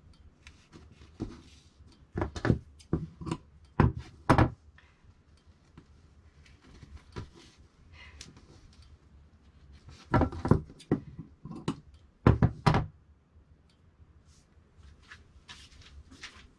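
Large dressmaker's shears and hands knocking and clacking on a wooden cutting table while cut cloth is handled: a run of sharp knocks about two seconds in and another about ten seconds in, with light rustling and clicks between.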